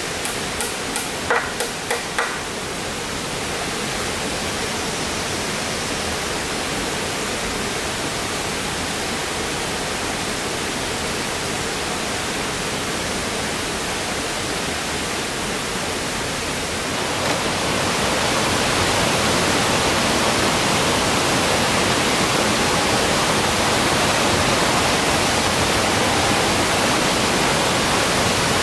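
A few sharp knocks in the first two seconds, then a steady rushing noise that grows louder about seventeen seconds in.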